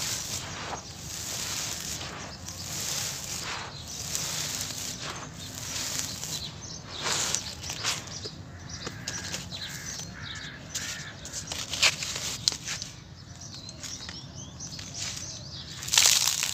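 Dry sand-cement dust crumbled between hands and poured from cupped palms in repeated grainy, hissing trickles with small crackles. Near the end a larger handful showers onto a round mesh sieve.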